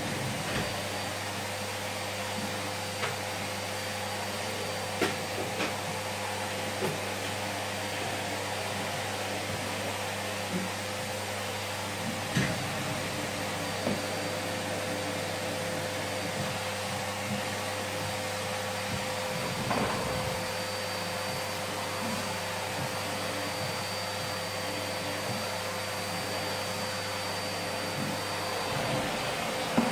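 Vacuum cleaner running steadily, with a constant whine as its nozzle and wand are pushed back and forth over a carpeted floor. A few light knocks are heard as the nozzle bumps around.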